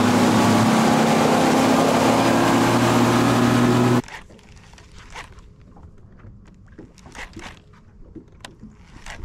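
Bass boat outboard motor running steadily at speed, with wind and hull spray. About four seconds in it cuts off abruptly to a much quieter stretch with scattered light clicks and taps from a fishing reel and rod.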